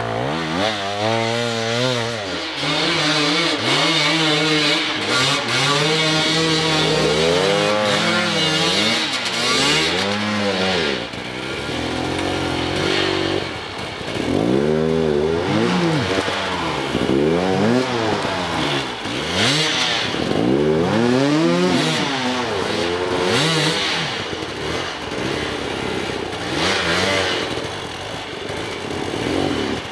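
Hard enduro dirt bike engine revving up and down over and over, the throttle opened and shut every second or two, with a short steadier stretch about six seconds in.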